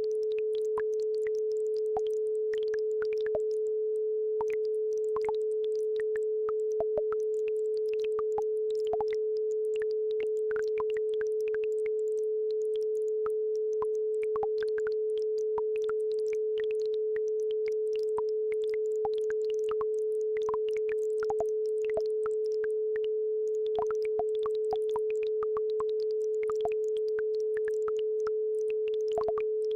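A steady electronic 432 Hz sine tone of the kind used for isochronic brainwave entrainment, holding one pitch at an even level, over faint babbling-brook water with many small trickling plinks and clicks.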